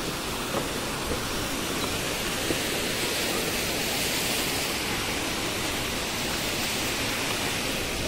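Waterfall: the steady, even rush of falling water.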